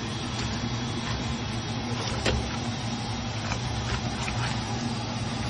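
Mud crabs and tiger prawns sizzling in a frying pan, with a spatula clacking against the pan now and then as they are tossed, over a steady low hum.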